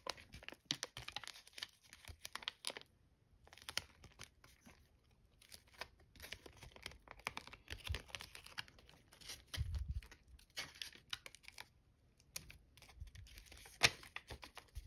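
Foil origami paper crinkling and crackling in short, irregular crackles as it is folded and creased by hand, with a louder crinkle near the end.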